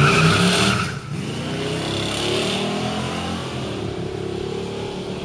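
Engine of an old carbureted coupe accelerating hard past. Its note drops sharply about a second in, then climbs again and fades as the car pulls away.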